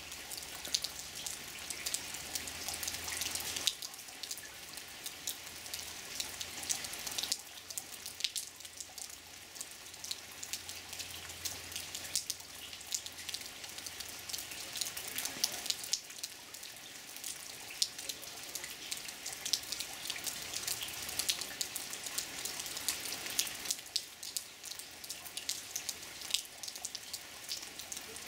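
Rain falling, a patter of many small drops and drips that grows louder and softer every few seconds.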